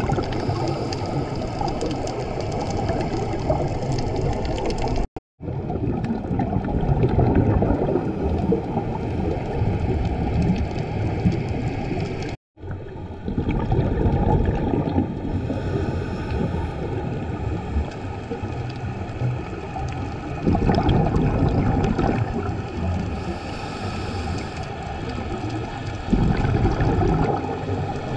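Muffled underwater rumble and bubbling of a scuba diver's regulator breathing, heard through a GoPro's waterproof housing, swelling louder every several seconds as the bubbles are exhaled. The sound cuts out completely twice, briefly, about five and about twelve seconds in.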